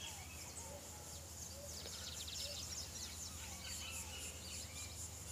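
Faint outdoor ambience with birds calling: scattered short chirps, and a rapid high trill about two seconds in.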